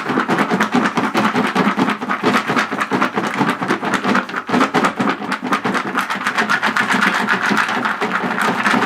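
Chex cereal pieces rattling inside a lidded plastic mixing bowl as it is shaken hard to coat them in powdered sugar: a dense, continuous rattle of many quick clicks.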